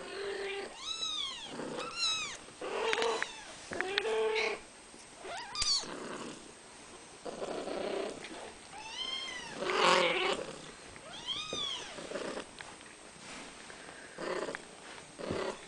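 Young kittens mewing: repeated high-pitched cries that rise and fall, bunched near the start and again in the middle, with lower, shorter mews between them, as the kittens try to nurse.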